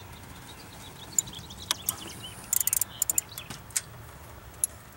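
Sharp metallic clicks of a socket ratchet and hand tools on a diesel engine's rocker-arm lock nut as it is worked loose. There is a quick run of ratchet clicks about halfway through, and single clicks before and after.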